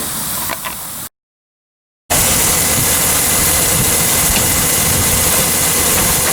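John Deere 4230 tractor's six-cylinder diesel engine running at a steady idle, loud, just after being cranked. About a second in, the sound cuts out completely for about a second at an edit, then the engine comes back in.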